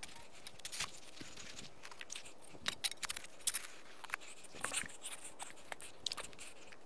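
Shovel blade stabbing into lawn soil and scooping out dirt: faint scattered crunches and scrapes, in small clusters about one, three and five seconds in.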